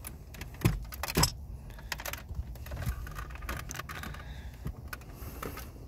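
Hands handling the plastic center-console trim and loose wiring inside a car: irregular small clicks, taps and rattles, with a couple of louder knocks about a second in.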